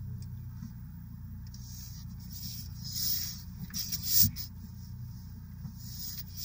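Car engine idling, heard from inside the cabin as a steady low hum. A passing car on the street outside adds a brief rising whoosh about three to four seconds in.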